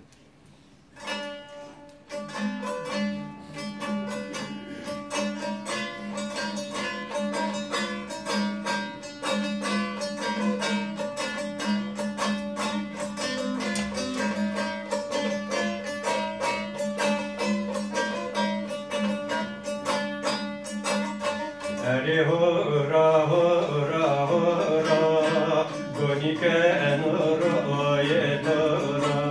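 A plucked string instrument played solo: rapid, dense strumming over a steady drone note. About 22 seconds in, a voice starts singing over the playing.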